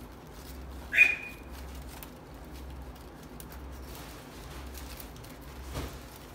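Palm-leaf strips rustling and ticking faintly as they are threaded and pulled through a weave by hand, with one short, sharp, high squeak about a second in.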